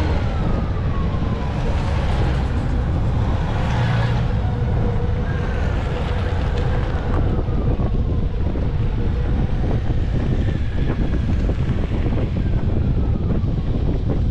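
A line of Honda Gold Wing motorcycles and trikes riding past one after another, a steady engine rumble with several falling tones as bikes go by. Wind buffets the microphone.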